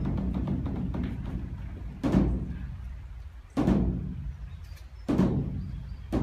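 Large Korean Buddhist temple drum (beopgo) beaten with sticks by monks. A run of fast strokes fades out, then four single heavy strokes follow about a second and a half apart, each ringing out, and fast drumming starts again at the end.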